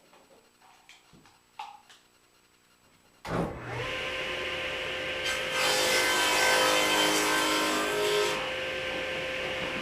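A few light handling clicks, then a table saw switches on about three seconds in and runs steadily. Its blade takes a light trimming cut through wood for about three seconds in the middle, then spins free again.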